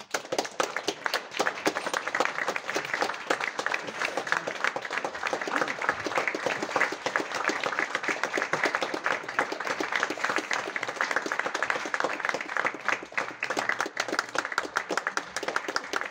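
Theatre audience applauding: dense, steady clapping of many hands that breaks out at once and keeps going.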